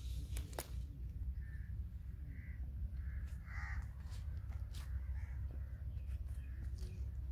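Crows cawing repeatedly, short calls about once a second with one louder call in the middle, over a steady low rumble. A few sharp clicks near the start.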